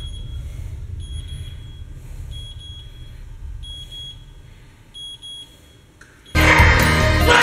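A digital platform scale's indicator beeping: a short high beep about every second over a low rumble. Near the end, loud heavy metal music cuts in suddenly.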